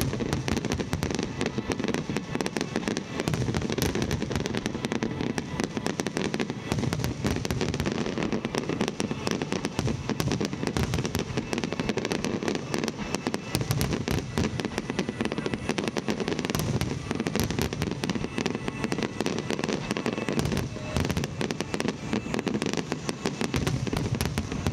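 Dense barrage of aerial fireworks bursting, a continuous rapid crackle of many overlapping bangs.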